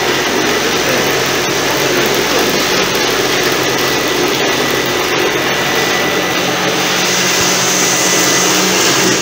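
Industrial sewing machine motor running steadily, turning the belt-driven bobbin winder as a bobbin fills: a loud, even whir with a faint high whine. It cuts off suddenly near the end.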